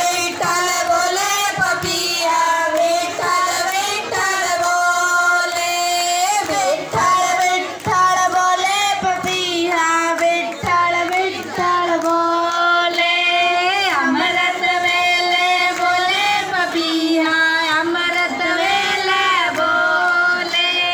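A group of women and girls singing a devotional song together, a girl's voice leading through a microphone and loudspeaker, with hand-clapping.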